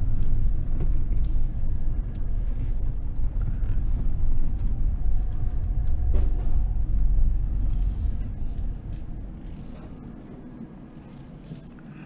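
Low rumble of a minivan driving slowly over a rough yard, heard from inside the cabin, with one knock about six seconds in. The rumble dies down from about eight seconds in.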